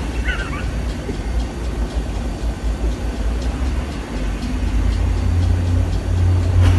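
A steady low rumble, with a short, wavering high chirp about half a second in and another near the end.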